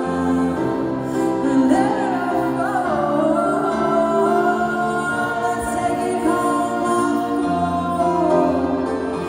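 Live ballad: a woman singing to piano and violin accompaniment, with long held notes.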